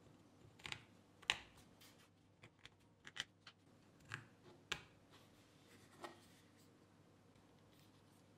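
Faint, scattered clicks and taps of small chrome metal rings being fitted one by one into holes in a carbon-fibre-vinyl-covered panel, about a dozen in all, stopping about six seconds in.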